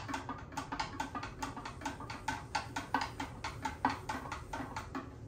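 A long-handled spoon stirring a pitcher of Kool-Aid, knocking against the pitcher's sides in quick, even clicks about five a second, with the drink swishing under them. The clicking stops near the end.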